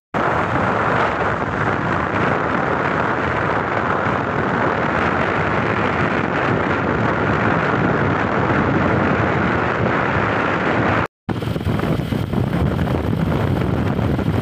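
Wind rushing over the microphone of a phone carried on a moving motorcycle, a steady loud rumble and hiss of riding noise. It cuts out for a moment about eleven seconds in.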